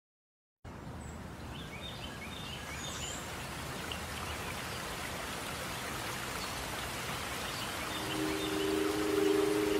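Rain-like steady hiss with a few high bird chirps, starting abruptly just under a second in and slowly swelling. About eight seconds in, held musical tones enter as the music begins.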